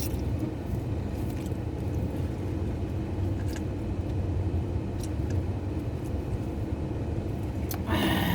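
Steady low rumble of a car heard from inside the cabin, with a few faint small clicks, and a brief voice-like sound near the end.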